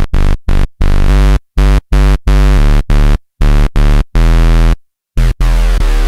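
Roland Juno-60 software synthesizer (Roland Cloud recreation) playing its "BS Square One" bass preset: a bass line of short, detached notes with a strong low end, ending on a longer held note.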